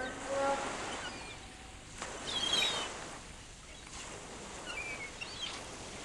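Waterside ambience: a steady wash of water with a few short bird calls.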